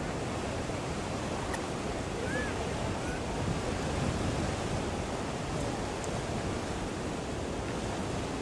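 Steady rushing outdoor noise with no distinct events, with a faint short chirp about two and a half seconds in.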